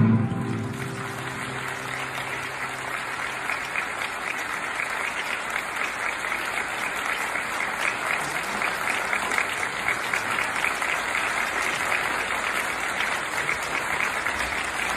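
Audience applauding as the last guitar note dies away at the very start, the clapping then running on steadily.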